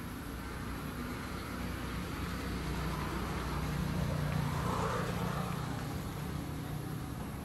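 Low rumble of a distant motor vehicle, growing louder around the middle and easing off again.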